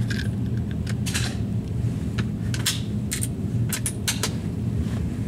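A steady low hum under a dozen or so light, scattered clicks and ticks; no shot is fired.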